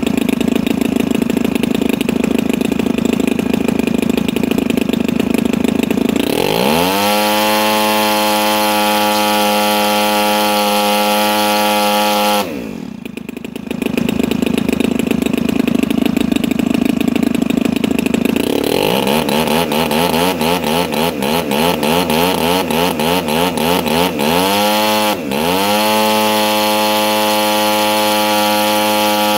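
DLE 35 rear-exhaust two-stroke gas engine on a model airplane being run up while its needles are tuned. It idles, climbs to a steady full-throttle run about six seconds in, drops back to idle around the middle, then runs up again and goes unevenly for a few seconds. After a brief throttle chop it settles into a steady full-throttle run.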